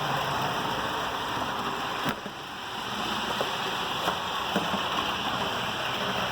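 HO scale model train running fast at full throttle on its track: a steady whirring rumble of motor and wheels, with a few light clicks.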